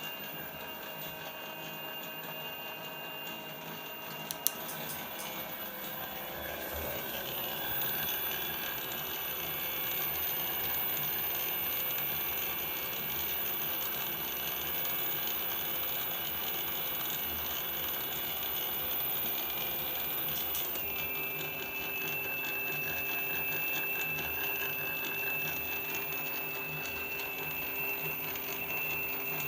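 Bafang BBS02 750 W mid-drive e-bike motor running with a steady high whine over a mechanical gear noise, an abnormal noise to its owner. A couple of sharp clicks come about four seconds in, where the whine changes, and the whine drops in pitch about twenty seconds in.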